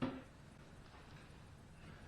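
A single short knock right at the start, then faint room tone.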